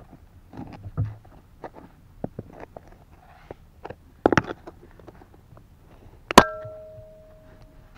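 A hand digging tool scrapes and chips at packed soil and rock, with scattered knocks and a quick cluster of sharp strikes about four seconds in. About six and a half seconds in comes the loudest sound, a sharp metallic clang that rings on with a clear tone for about a second and a half.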